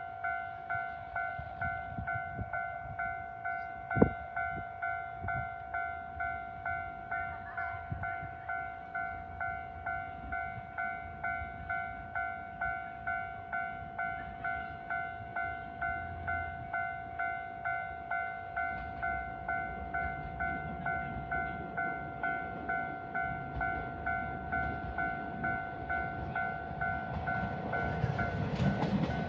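Railway level-crossing warning bell ringing in a steady, even pulse of about three strokes every two seconds. In the last few seconds the rumble of the approaching diesel train builds underneath it.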